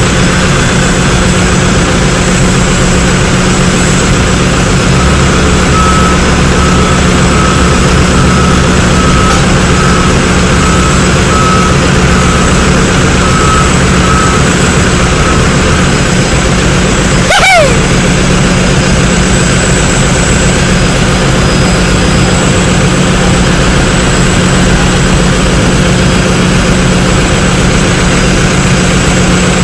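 Loud, steady drone of ground machinery on a cargo ramp beside a Boeing 747 freighter. A high warning beeper sounds about once every 0.7 s from about six seconds in until about fifteen seconds. About seventeen seconds in there is one brief clunk with a short falling squeal.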